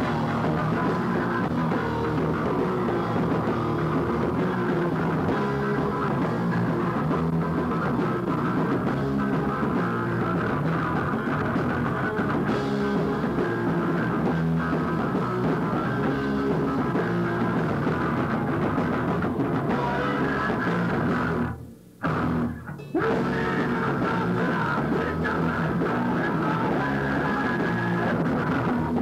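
Live punk-metal band playing loudly: distorted electric guitars over a pounding drum kit, heard through a lo-fi VHS recording. The sound cuts out briefly twice about three-quarters of the way through, then the playing carries on.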